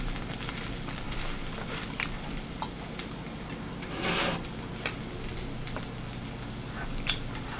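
Mukbang eating sounds: chewing with a few light clicks of wooden chopsticks on the dishes, and a short wet stirring sound about four seconds in as the chopsticks dig into the tteokbokki sauce. A steady low hum runs underneath.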